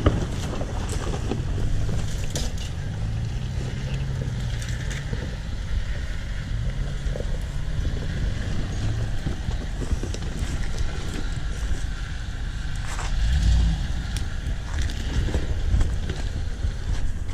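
Pickup truck engines running slowly, their pitch wavering, with tires crunching and clicking over loose rocks on a rough dirt road. A heavier low thump comes about thirteen seconds in.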